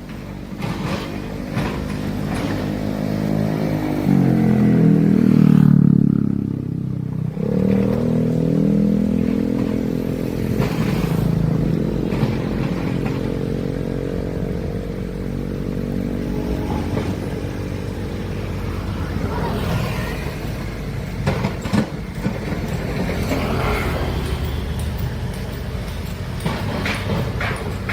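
Heavy excavator's diesel engine running under load. About four seconds in it revs up, then drops back sharply a few seconds later and carries on working steadily, with scattered sharp knocks and clatter near the end.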